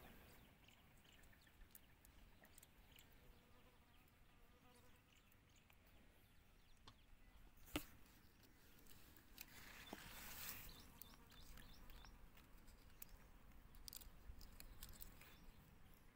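Faint crackle and rustle of dry mung bean pods being handled and split open by hand, with a single sharp click about eight seconds in.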